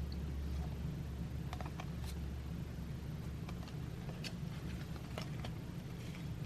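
Faint scattered clicks and light rustles of baseball trading cards being handled and flipped through, over a steady low hum.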